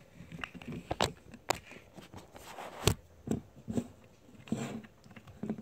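Close handling noise: a string of irregular clicks and knocks with rubbing between them, the loudest knock about three seconds in.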